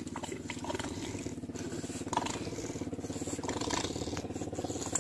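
An engine running steadily at an even speed, with a few faint clicks over it.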